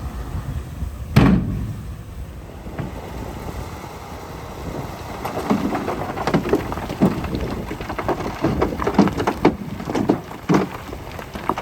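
Soil and stones tumbling and clattering in irregular thuds over the low rumble of a heavy machine's engine, with one loud bang about a second in.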